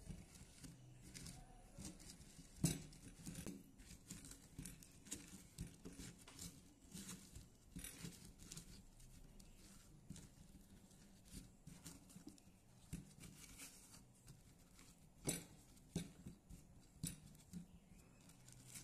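Faint, irregular soft knocks and scrapes of a hand tossing and rubbing spice-coated mango pieces in a clay bowl, with a few sharper knocks.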